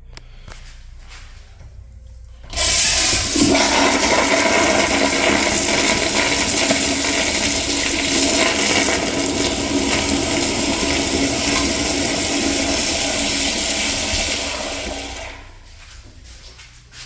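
Crane Plumbing EcoHymont toilet flushing: a loud rush of water starts suddenly about two and a half seconds in, runs steadily for about twelve seconds, then fades out.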